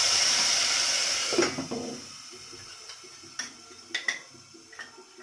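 Poppy-seed and mustard paste hitting hot oil in a steel pot, sizzling loudly and dying away about a second and a half in. After that come a few light metal and glass clinks as the spoon and bowl touch the pot and a glass lid is set on it.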